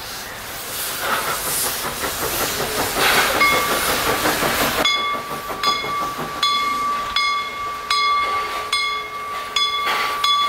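Steam locomotive venting steam with a loud hiss. About five seconds in, a steady high-pitched ringing tone starts, broken by a sharp click roughly twice a second as the train moves.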